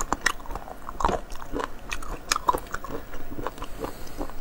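Chewing of raw abalone sashimi: firm, crunchy bites with many crisp clicks at irregular intervals.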